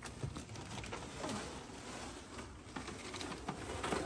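Close handling of a boat's electrical cables and corrugated plastic wire conduit: rustling and scraping, with scattered sharp clicks and a few short squeaks as the conduit is pulled and rubbed.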